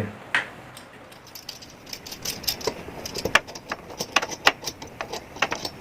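Light metallic clicks and rattles of a microphone arm stand's parts being fitted and screwed together, irregular and getting busier from about two seconds in.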